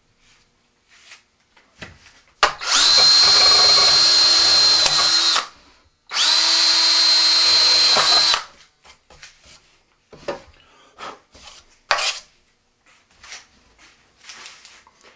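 Cordless drill boring a small pilot hole through a rocket's airframe tube at the fin root. It runs twice, for about three seconds and then about two, each time spinning up to a steady whine. Light clicks and handling knocks follow.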